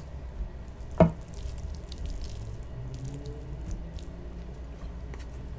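Fork and spoon twirling saucy spaghetti close to a microphone: soft wet squishing with faint scattered ticks, and one sharp click about a second in.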